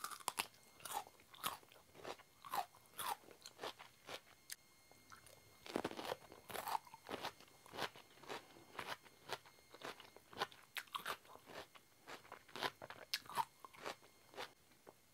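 A person chewing crisp raw produce with the mouth close to the microphone: an irregular run of crunches, roughly two a second, with a thicker cluster of crunches around the middle.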